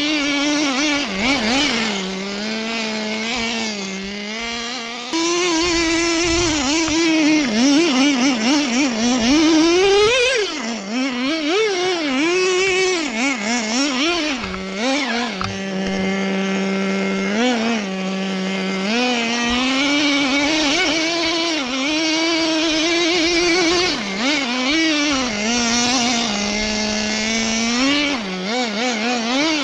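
Traxxas Nitro Slash RC truck's small nitro engine running, its high-pitched note rising and falling again and again as the throttle is worked, with a steadier stretch of a few seconds in the middle.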